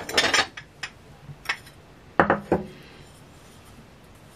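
China cups and saucers clinking and knocking together as they are handled and taken out of a box. There are several sharp clinks, the loudest in the first half second and again about two seconds in.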